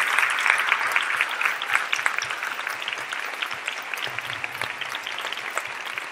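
Theatre audience applauding, loud at first, then thinning out and fading steadily.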